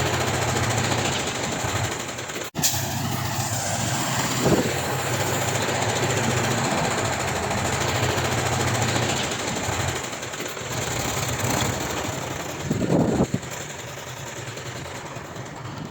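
Heavy diesel earthmoving machinery running steadily, with a couple of brief clanks.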